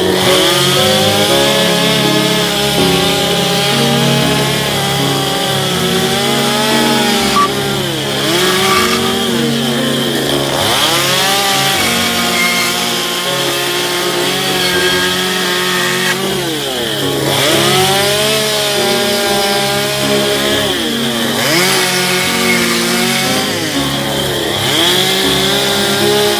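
Stihl gas chainsaw running at high revs while cutting into western red cedar. The engine pitch dips and climbs back several times as the throttle is let off and squeezed again between cuts.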